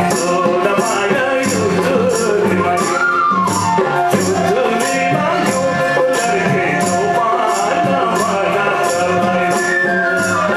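Nepali folk ensemble playing: a harmonium melody with a man singing, a madal barrel drum and tabla keeping the rhythm, and a hand percussion jingle striking a steady beat about two to three times a second.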